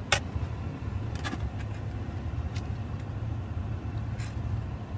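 Steady low rumble inside a pickup truck's cab, with four light clicks spread across it.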